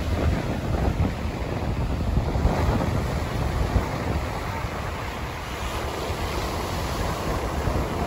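Ocean surf washing onto a sandy beach, with wind buffeting the microphone in a heavy low rumble.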